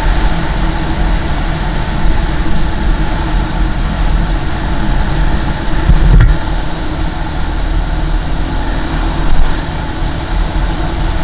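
Husqvarna SM510R supermoto's single-cylinder four-stroke engine running steadily as the bike rides along a paved road, with wind and road noise mixed in.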